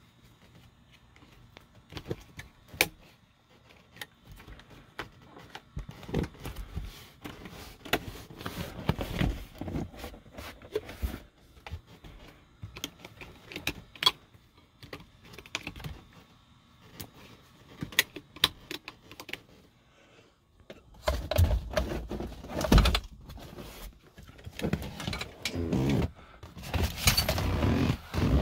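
Scattered clicks and taps of a Mercedes-Benz GLK350 rear seat backrest's lock and steel frame being worked by hand, followed about two-thirds of the way in by longer, louder rubbing and thumping as the seat is handled.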